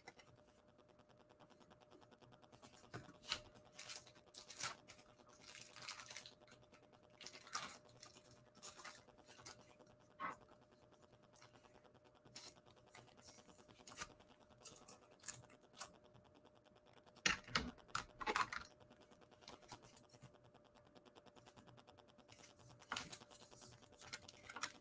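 Faint, scattered scrapes and crinkles of cardboard trading cards and a clear plastic card sleeve being handled as a card is slid into the sleeve, over a faint steady hum.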